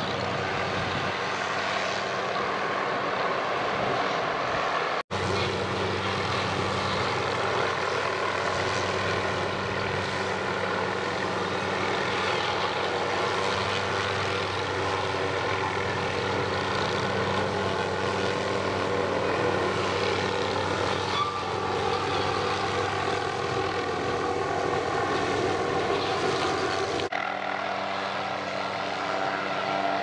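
MD 500-type light helicopter hovering, a steady drone of rotor and engine with a constant pitched hum, mixed with the engine of the multi-blade tree-trimming saw hanging below it. The sound drops out for an instant about five seconds in, and near the end the low hum thins out.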